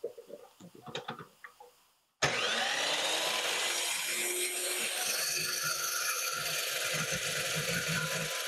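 A few short clicks and knocks as a pipe is clamped in the saw's vise, then about two seconds in an Evolution metal-cutting chop saw starts suddenly, its motor pitch rising as it comes up to speed, and its blade cuts through steel pipe with a loud, steady grinding.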